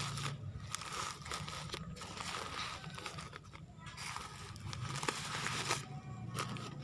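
Black plastic polybag crinkling, with leaves rustling, as hands handle a potted vinca seedling; it comes in three or four bursts of a second or two each, over a low steady hum.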